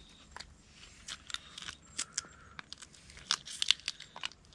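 Cooked crab shells being cracked and picked apart by hand during eating: irregular small cracks and clicks, a quick cluster of them about three and a half seconds in.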